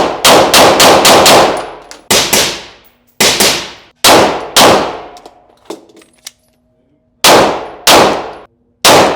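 Gunshots echoing in an indoor shooting range: a quick string of about six shots, then pairs of shots about half a second apart, a gap of about two seconds, then three more. Each shot is sharp and loud and rings out in a reverberant tail.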